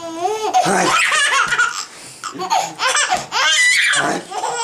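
A baby laughing in two long, loud peals of high, breathy giggles.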